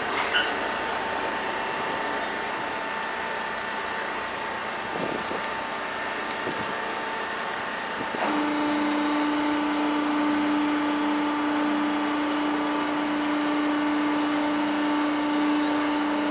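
Ferry engine running steadily under a wash of water and wind noise. About halfway through, a steady low hum comes in and holds.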